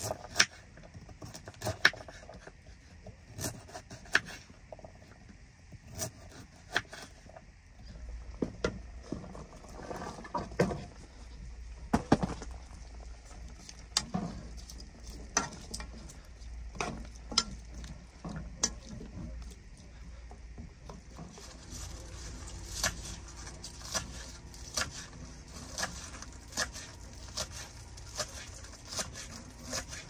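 Knife chopping vegetables on a wooden cutting board: irregular sharp knocks of the blade against the board. Partway through, a steady low rumble and then a hiss join in underneath.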